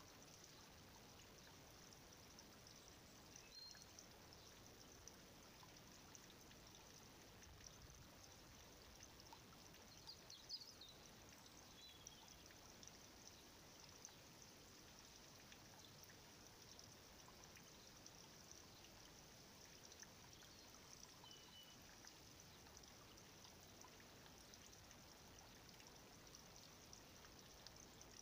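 Near silence: a faint steady hiss of background noise, with a few faint, short high chirps scattered through it.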